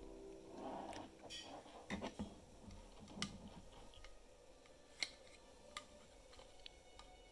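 Scattered light clicks and taps of a 3D-printed PLA case and a display board being handled and fitted together, with one sharper click about five seconds in.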